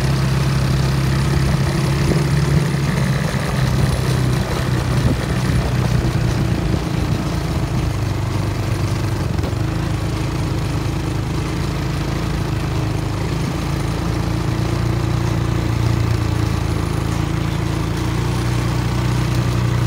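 Quad bike engine running with a steady drone. It eases off a little in the middle and picks up again near the end.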